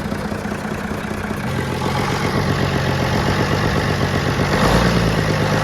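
Freshly restored Ashok Leyland 680 diesel engine running on its first start, with a fast, even knock of firing pulses. Its speed picks up about a second and a half in, and it is loudest near the end.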